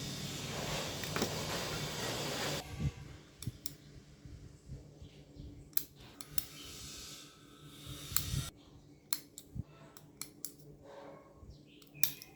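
Hand work on thin beer-can aluminium: a scratchy cutting or scraping noise for about two and a half seconds, then scattered sharp clicks and taps of small parts being handled, with another stretch of rustling cutting midway.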